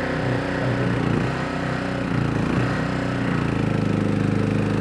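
Longtail mud motor's small gas engine running at speed, its propeller biting right at the water's surface. The engine note wavers for the first couple of seconds, then holds steady.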